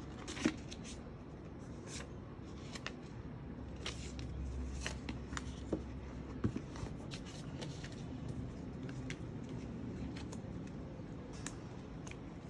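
Hands handling packaging: scattered light clicks, taps and rustles, irregular and brief.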